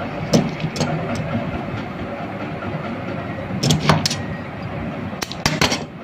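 Light clicks and rustles of thin wire leads being handled and twisted together on a fan motor's copper-wound stator, over a steady background noise. The clicks come in small groups: near the start, around the middle and near the end.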